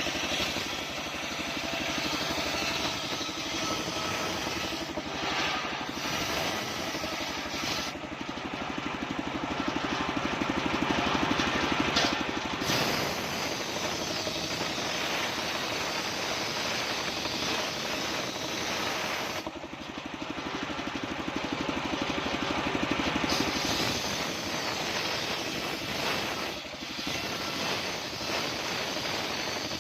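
Homemade circular saw bench running steadily while it rips mindi wood, with the blade's cutting noise swelling and easing every few seconds as the timber is fed through.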